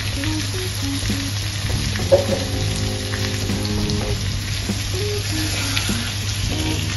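Hot oil sizzling steadily in a karahi around chicken pieces and freshly added green coriander-chilli paste, with a spatula beginning to stir through it near the end.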